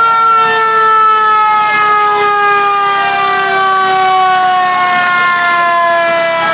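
Fire engine siren passing close by, one long wailing tone slowly falling in pitch.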